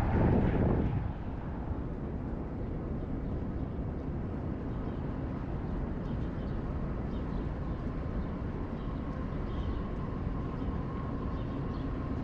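Wind buffeting the microphone for about the first second, then a steady low hum of city background noise, with distant traffic and building ventilation.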